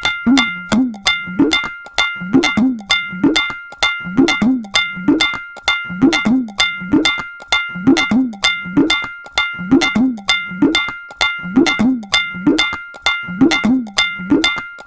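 Tabla played in a fast, steady repeating rhythm, several strokes a second: the treble drum (dayan) rings at one fixed pitch while the bass drum (bayan) gives low strokes whose pitch bends up and down under the palm. The pattern repeats about every two seconds.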